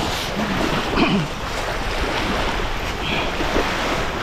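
Steady rushing noise of wind and water, with a brief bit of a voice in the first second.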